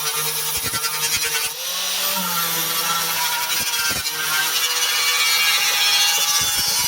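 Electric power tool running on metal, a steady whine with fast ticking; about a second and a half in the sound shifts and grows harsher and brighter.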